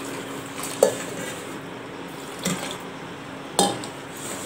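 Water poured from a steel tumbler into a stainless steel bowl of roasted semolina and stirred in, with three sharp metallic clinks against the bowl, the first, about a second in, the loudest.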